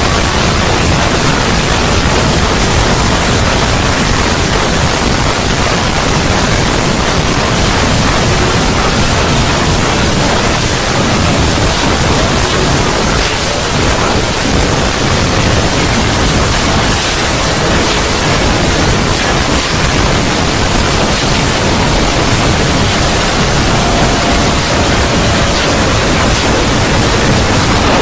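A steady, loud rushing noise spread evenly from deep to high pitches, like pink noise: a synthetic 'void' ambience sound effect. A faint thin tone drifts in near the end.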